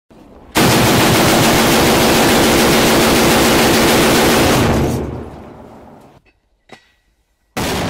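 A 30 mm automatic grenade launcher fires one long burst of rapid automatic fire in an enclosed concrete room, starting suddenly about half a second in and lasting about four seconds before fading away. Near the end another sudden loud blast begins.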